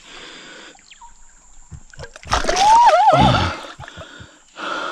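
Hooked catfish thrashing and splashing in the shallows as it is hauled in on a hand line, a loud splash about two and a half seconds in lasting about a second, with a short, wavering high-pitched cry over it.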